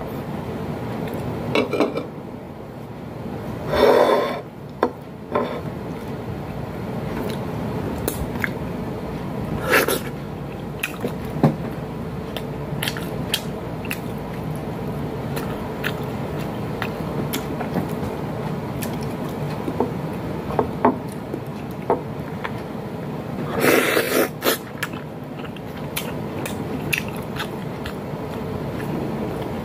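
Eating sounds close to the microphone: chewing and mouth noises, with short clicks and a few louder scrapes of food and fingers on a ceramic plate, over a steady room hum.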